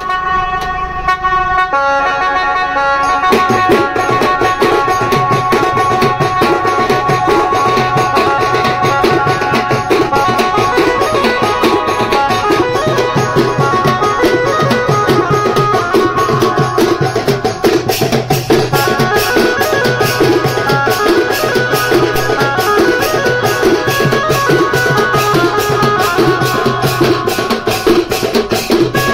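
Kemta baja band playing: a sustained melody line is heard alone at first, then dhol and large frame drums come in about three seconds in with a fast, dense beat under it.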